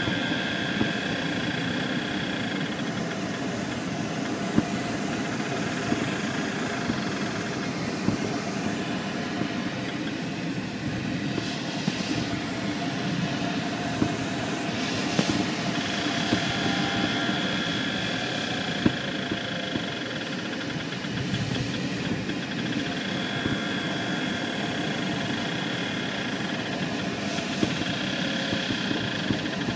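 Steady in-flight cabin noise of a light aircraft, airflow and drone, with a faint high whistle that comes and goes several times.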